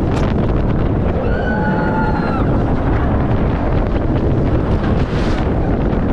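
Wind rushing over the microphone on Montu, an inverted steel roller coaster, while the train runs the course. A brief high-pitched wail rises over the wind about a second in.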